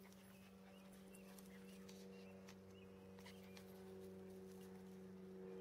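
Near silence: a faint steady hum with a scattering of soft ticks.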